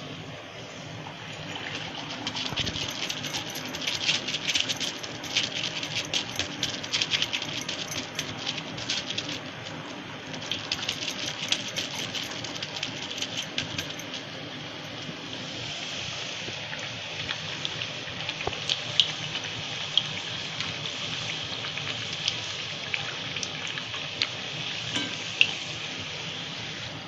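Dough puris deep-frying in hot oil in a kadai: a steady sizzle full of dense crackling, busiest in the first half, with a few sharper louder pops in the second half.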